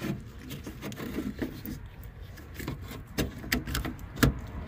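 Plastic wiring connectors being handled and pushed together at a tail light junction block: scattered small clicks and rubbing, with one sharper click near the end.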